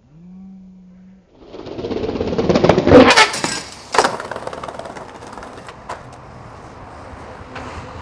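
Skateboard wheels rolling on rough pavement, building up loud, with a sharp clack of the board hitting about three seconds in and another about a second later; the rolling goes on more quietly after, with a few light clicks. A short low hum comes before the rolling starts.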